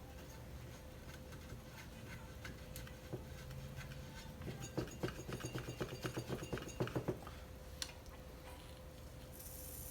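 Hand ratchet with a 19 mm socket clicking in a quick run of clicks a little before halfway through, turning an Echo clutch remover to unscrew a chainsaw clutch, with a few scattered ticks of tools around it.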